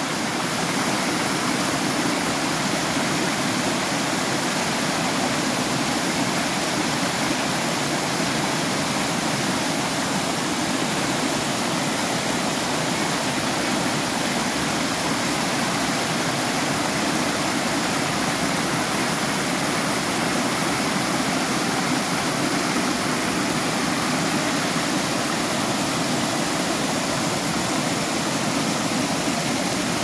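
Small waterfall pouring over rocks: a steady, even rush of falling water.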